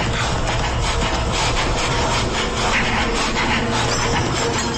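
Dense, rapid rasping or scraping noise over a steady low hum: a sound effect in a radio drama's opening.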